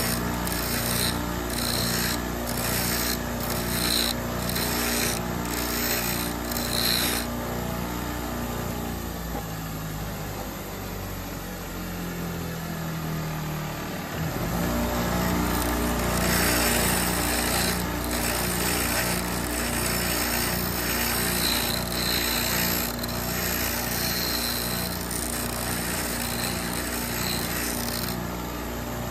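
Sears Craftsman bench grinder running, with a metal hole punch pressed against the spinning wheel in repeated short grinding strokes. Near the middle the motor hum drops away for a few seconds, then comes back suddenly.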